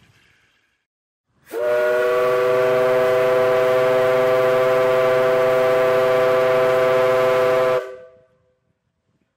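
Steam whistle on a vertical steam boiler blowing one long, steady three-note chord with a hiss of steam, for about six seconds, starting abruptly and cutting off with a short fade.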